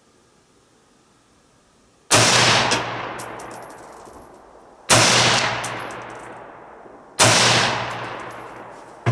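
Three single rifle shots from a Colt Combat Unit Carbine (5.56 mm AR-15), fired about two to three seconds apart in slow aimed fire. Each report is followed by an echo that fades out over about two seconds.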